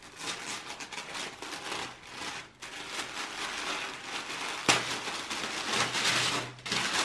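Tissue paper and a plastic wrapping bag crinkling and rustling as a folded shirt is unwrapped by hand. The rustling grows louder for about two seconds past the middle, starting with a sharp crackle.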